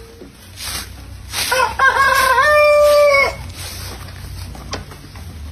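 A rooster crowing once, about a second and a half in: a loud call of about two seconds that rises and then holds steady before breaking off. Around it come short scratchy strokes of a broom sweeping dry leaves over bare dirt.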